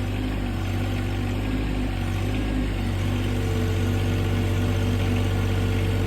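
Small garden tractor's engine running steadily while its front-end loader strains under a heavy round hay bale it cannot lift, with a steady whine coming in about three seconds in.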